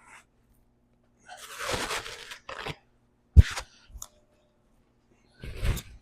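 Paper towels being torn off and rustled as they are laid down, in several short bursts, with one sharp knock a little over three seconds in.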